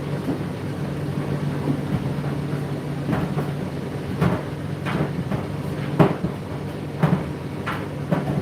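Laundry appliance running with its drum turning: a steady motor hum, with irregular knocks as the load drops inside the drum, the loudest about six seconds in.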